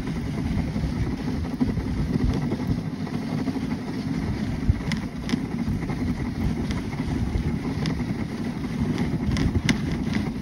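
Dog sled runners sliding over a packed snow trail: a steady low rumble and hiss, with a few sharp clicks in the second half.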